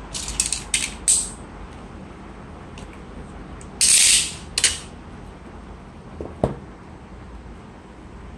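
Cardboard and plastic phone packaging being handled: a few quick scrapes and rubs in the first second and a half, a louder rasping rub about four seconds in, and a single knock about six and a half seconds in.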